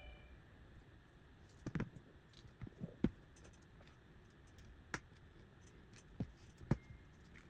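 Small hand tools clicking and tapping against a smartphone's frame and the workbench during disassembly: a handful of separate sharp taps, the loudest about three seconds in and near the end.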